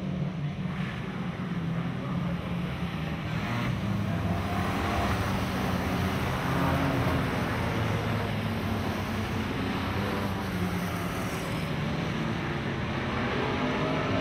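Engines of several small sedan race cars running hard around the track, their revs rising and falling as they lap.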